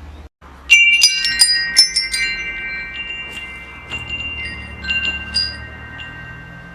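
Wind chimes struck in a quick cluster about a second in, their clear metallic tones ringing on and slowly fading, with a few lighter strikes later, over a low rumble.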